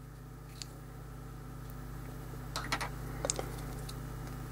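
A few light clicks and taps of small plastic ShengShou 7x7x7 cube pieces being handled and fitted together, mostly in the second half, over a steady low hum.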